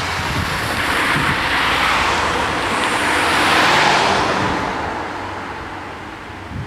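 A road vehicle driving past, its engine and tyre noise swelling to a peak a little past the middle and then fading away.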